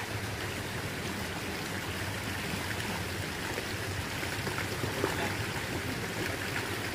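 Tubewell water flowing steadily into a concrete tank, a continuous rushing stream, with a faint steady low hum underneath.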